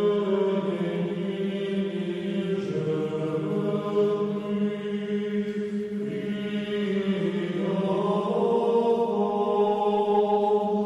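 Orthodox church chant as background music: voices singing long held notes over a steady drone, the melody above it moving to new notes a few times.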